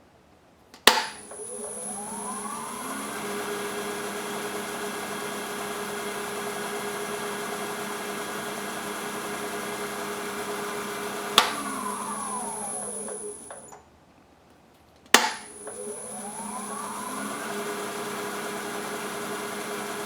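Powermatic 3520B lathe switched on with a click, its motor and spindle spinning up with a rising whine and running steadily, then switched off and winding down to a stop, and started again about 15 seconds in. Through the running comes a thumping that the owner traces to the rear spindle bearing area, in the same spot each revolution.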